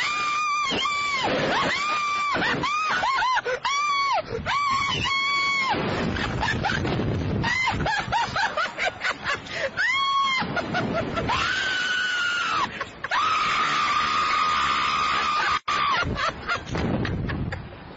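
Two riders on a Slingshot reverse-bungee ride screaming: a rapid string of short, high-pitched screams, then long held screams in the second half. Between the screams, wind rushes over the onboard microphone as the capsule swings.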